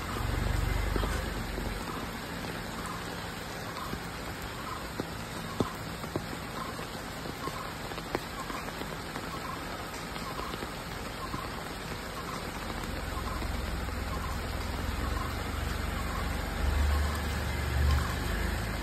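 Rain pattering and dripping while a Tata Punch moves slowly over a wet mud driveway; its low engine and tyre rumble swells near the start and again in the last few seconds. A faint soft blip repeats about once a second.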